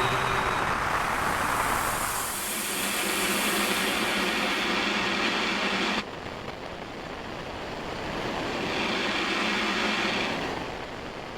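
Synthesized ambient sound-design texture from a custom UVI Falcon software instrument: swelling noise washes over low held tones, cutting off suddenly about six seconds in and then swelling up again.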